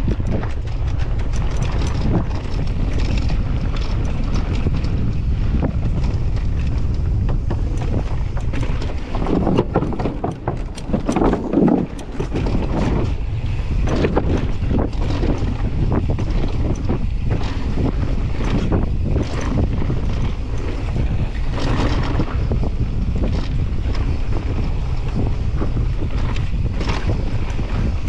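Wind buffeting an action camera's microphone as a downhill mountain bike descends a dirt trail at speed, with the tyres and bike clattering over rough ground. A rougher stretch of knocks and rattles comes about a third of the way in.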